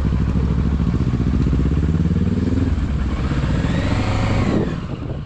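Kawasaki Versys 650's parallel-twin engine running under way, its pitch climbing as it accelerates and then dropping about three seconds in.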